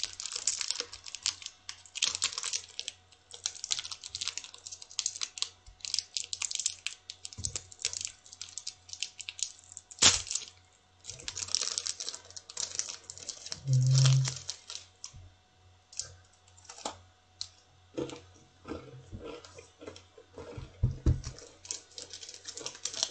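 Plastic snack wrapper being handled and opened, a dense run of crackles and crinkles that thins out to scattered clicks about halfway through. A short low hum comes in the middle.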